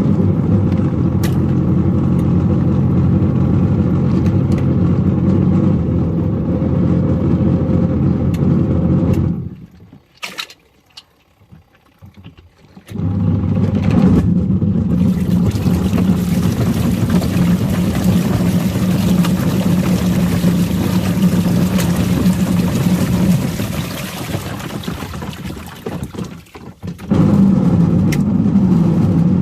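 Washing machine motor running with a steady hum as it churns Lego pieces in water. It stops for about three seconds about a third of the way in, then starts up again, and dips briefly near the end.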